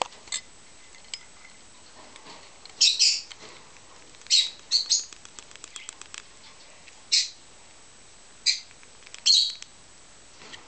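Peach-faced lovebird chick giving short, high-pitched begging calls in a handful of separate bursts while being spoon-fed, with a run of small quick clicks around the middle.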